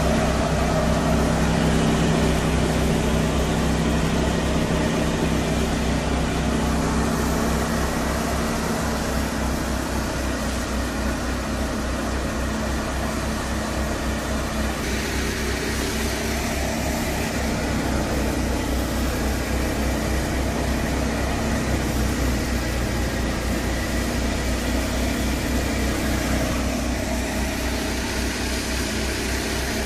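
Fiat 480 diesel tractor running steadily under load while driving a thresher threshing mustard: a continuous mechanical din of engine and spinning threshing drum.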